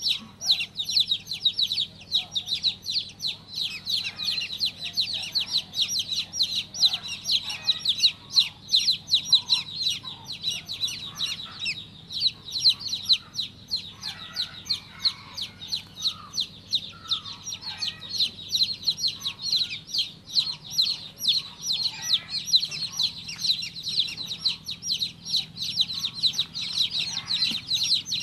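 A group of newly hatched chicks peeping non-stop, with many short, high-pitched peeps overlapping in a dense chatter.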